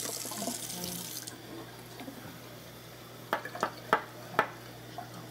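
Water running from a kitchen tap, stopping a little over a second in, then a handful of sharp clinks of dishes at the counter, mostly bunched together past the middle.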